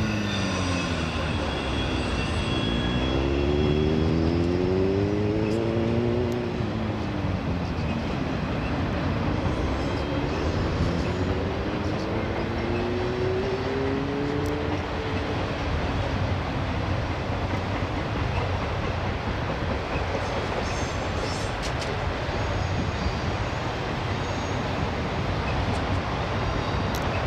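Autorack freight train rolling past: a steady rumble of wheels on rail, with thin wheel squeal fading out in the first few seconds. Road vehicles pass close by, their engines rising in pitch through the first half.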